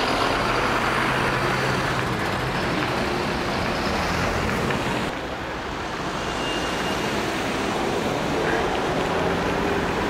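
Vehicle engines running with a steady low hum over road traffic noise. The sound changes abruptly about five seconds in, becoming slightly quieter and duller.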